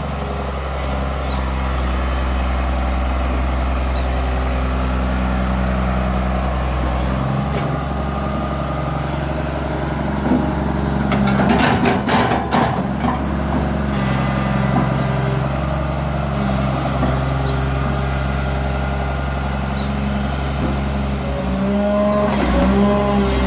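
Komatsu PC200LC-3 excavator's diesel engine running at low RPM under hydraulic load while digging, its pitch dipping and rising as the load changes. A burst of clatter comes about halfway through, and a rising whine near the end.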